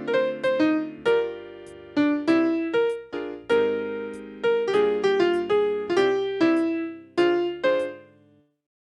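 Panasonic KX-TGA682EX cordless phone ringtone: a simple electric-piano-like melody of single struck notes that decay one after another. It dies away shortly before the end.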